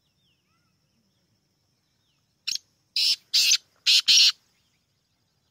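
Black francolin calling: after a pause, a short note about two and a half seconds in, then a rapid run of three or four loud, harsh, scratchy notes.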